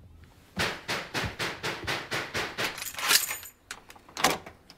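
Rapid, repeated pounding on a door, about four blows a second. Then a metallic jangle as the door's lock and chain are worked, and a couple more sharp knocks near the end.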